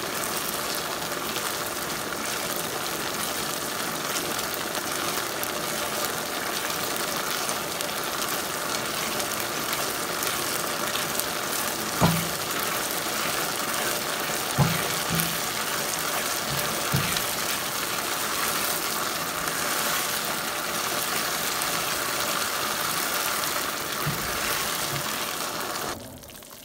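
Thick cornflour halwa sizzling in a nonstick pan as it is stirred with a spatula, at the last stage of cooking as it pulls away from the sides of the pan. A steady hiss, with a few knocks of the spatula against the pan around the middle, cutting off suddenly near the end.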